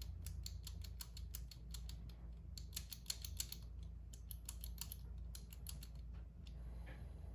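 Master Lock M175 combination padlock's number wheels being turned, a quick run of small clicks as each wheel steps from digit to digit, thickest about three seconds in. The shackle is held under tension while the wheels are felt for slop, to decode the combination.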